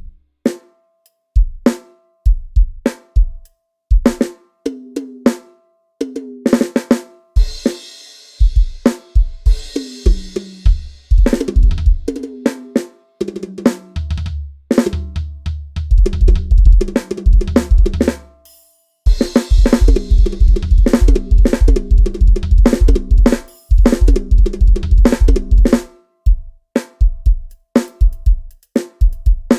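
Addictive Drums 2 sampled drum kit playing in short stop-start phrases: kick, snare, toms and hi-hat, with crash cymbals ringing in two stretches. Fast, dense kick-drum runs come in the middle and latter part.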